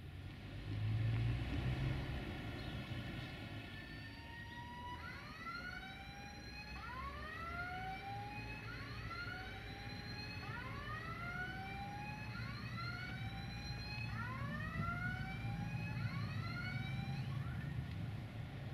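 A siren wailing in quick upward sweeps, repeated about once a second and overlapping, from a few seconds in until shortly before the end. Under it runs a steady low rumble of the approaching freight train.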